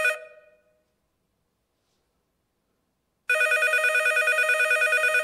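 Telephone ringing: a rapid warbling electronic ring that stops just after the start and comes again about three seconds in, with dead silence between the rings.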